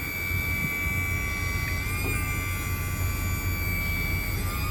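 Service-truck crane swinging side to side on its hydraulics: a steady high whine that stops near the end, over the low running of the truck's 6.7 Power Stroke diesel.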